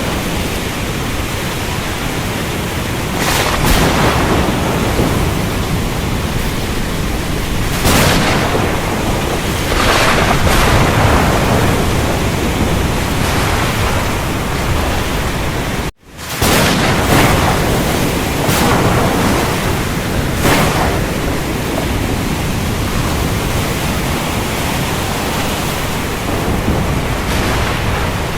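Thunderstorm: a steady wash of heavy rain, with thunder swelling up several times. The sound drops out for an instant about halfway through.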